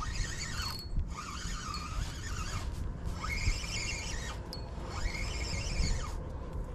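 Daiwa Freams spinning reel cranked in four short spurts with brief pauses between, a stepped jig retrieve. Each spurt is a whir that rises in pitch as the rotor spins up and falls as it stops.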